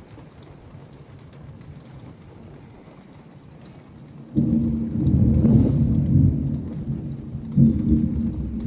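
Heavy rain falling steadily, then about four seconds in a loud low rumble of thunder breaks in suddenly and rolls on, swelling again near the end.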